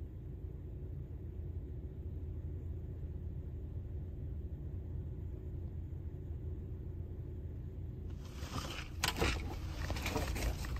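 Steady low rumble of a car heard from inside its cabin. About eight seconds in, clicks and rustling from handling things in the car join it.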